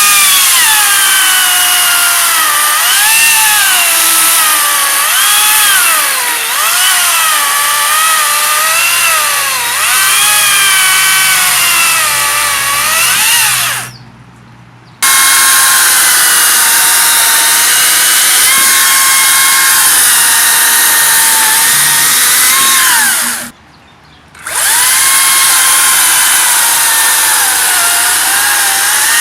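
Makita cordless electric chainsaw running at full speed and cutting wood. The motor's whine drops in pitch again and again as the chain bogs under load, then recovers. It stops briefly about 14 seconds in and again about 24 seconds in, and starts up again each time.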